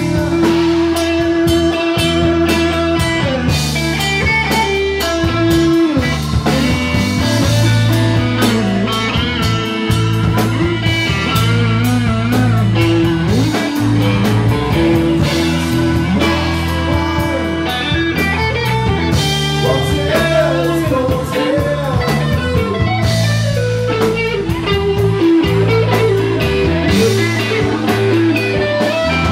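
Live rock band playing loudly: electric guitar lead with bent, wavering notes over bass guitar and drum kit.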